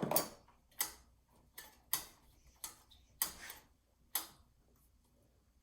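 A string of sharp clicks, about seven in the first four seconds at uneven spacing, then quiet. They come from parts being handled and worked on a new small-engine lawn mower engine.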